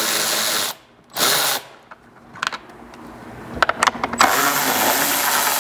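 Cordless electric ratchet with a 10 mm socket running in three bursts, a short one about a second in and a longer one in the second half, backing out the screws that hold a reflector to a plastic bumper fascia, with a few light clicks between runs.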